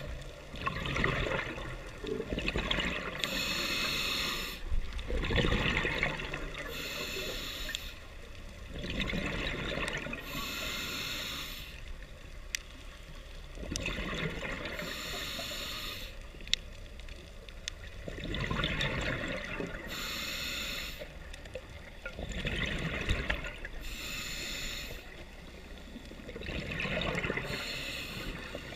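Scuba diver breathing through a regulator underwater: a hissing inhale through the demand valve, then a rush of exhaled bubbles. The cycle repeats about every four to five seconds.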